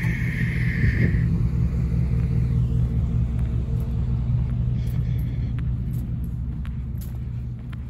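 An engine idling steadily: a low, even rumble with a few light clicks in the second half.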